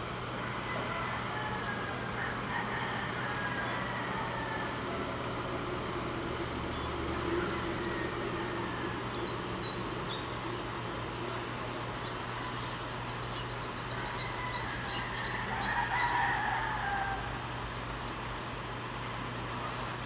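Steady rush of flowing river water, with small birds chirping in short high notes throughout. A louder drawn-out call rises above it about three-quarters of the way through.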